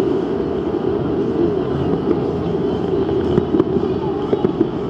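A large crowd of people all talking at once: a steady din of overlapping voices, with no single speaker standing out and a few short clicks now and then.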